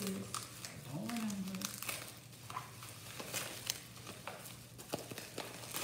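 Plastic bubble wrap crinkling and crackling in irregular bursts as it is pulled and unwrapped by hand.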